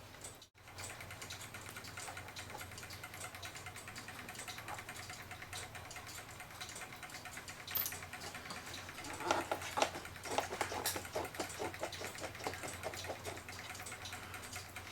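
A steady run of rapid, light clicks from small metal parts of the mantel clock as it is being dismantled. The clicking gets louder, mixed with scraping, from about nine seconds in.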